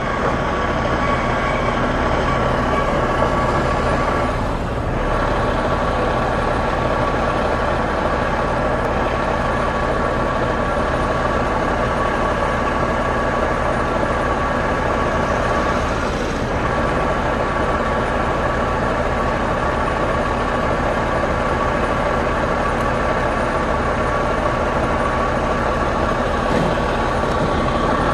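Automated side-loader garbage truck running at a standstill: a steady low diesel rumble with a constant whine over it.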